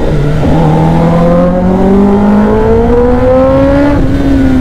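Kawasaki ZX-10R's inline-four engine accelerating hard in one gear, its pitch rising steadily for about four seconds, then falling away near the end as it eases off.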